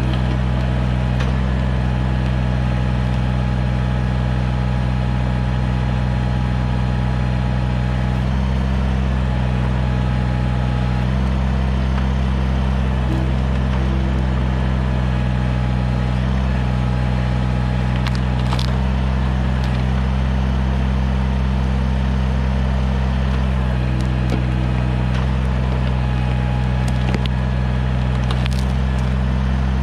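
Kubota BX tractor's diesel engine running steadily under load as the backhoe digs, its pitch shifting slightly as the load changes. Wood and roots crack and splinter sharply a few times, mostly in the second half.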